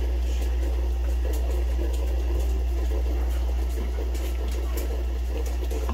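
Solis Barista Perfetta espresso machine's pump buzzing steadily with a low hum and a light rattle, pushing water through the group head, then cutting off suddenly near the end.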